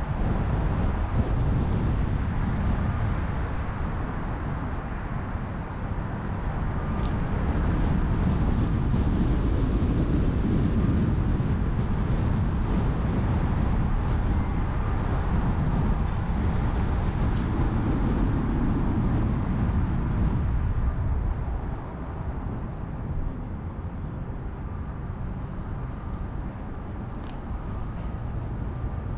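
A car driving slowly, with a steady low rumble of road and engine noise that falls off about two-thirds of the way through.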